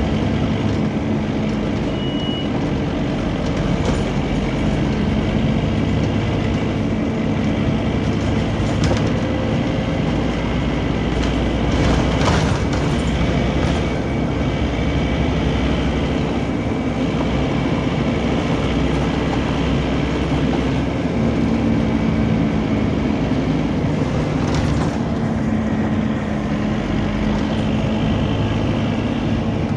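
Scania double-decker bus running on the move, heard from inside: a steady engine and cooling-fan drone with a low hum that strengthens in the second half, over road noise, with a few sharp knocks and rattles from the body.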